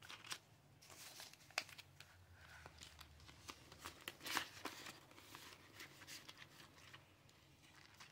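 Faint rustling of paper cash bills being handled, with a few soft clicks.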